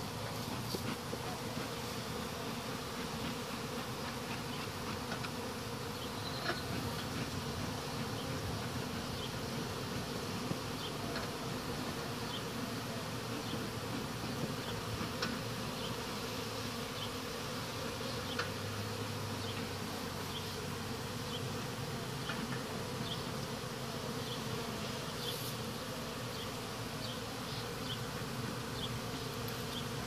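Steady, dense buzzing of a honey bee colony whose hive is being cut out, with many bees in flight around it, and scattered faint ticks.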